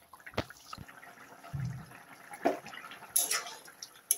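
Fish curry simmering in a metal kadai, with a few scattered soft pops and clicks, then a spoon stirring through the gravy in the pan near the end.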